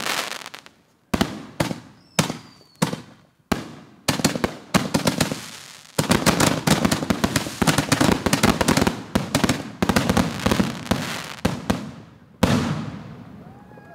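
Consumer aerial fireworks bursting overhead: separate loud bangs about a second apart, each trailing off, then from about six seconds in a dense run of rapid bangs and crackling, ending with one last bang that fades away near the end.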